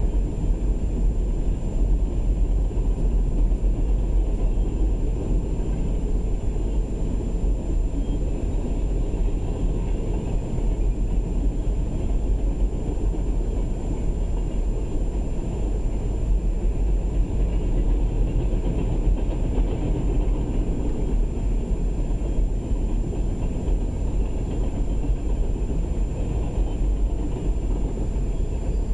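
A CSX train of empty coal hopper cars rolling past at speed, its wheels running steadily on the rails without a break, heard from inside a car.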